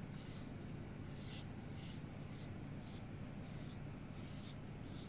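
Pastry brush swishing back and forth over oiled, thinly rolled dough on a wooden board: soft, faint strokes about twice a second, over a low steady hum.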